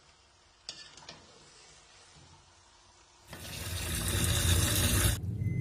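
Faint room quiet with a couple of small clicks, then about three seconds in a tap starts running hard into a steel sink, a loud steady rush of water whose hiss drops away near the end, leaving a lower running-water rumble.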